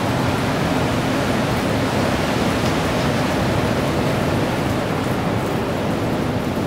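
Loud, steady roar of storm wind and heavy surf, with no sudden strikes or breaks.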